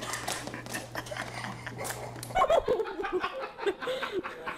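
A small dog wearing boots steps awkwardly on a hardwood floor, making a run of light taps and scuffs. About halfway through, people burst out laughing.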